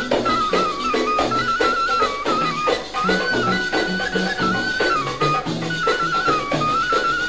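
Instrumental passage of a Tunisian folk song: a single lead instrument plays an ornamented, wavering melody over a steady drum beat and a lower accompaniment.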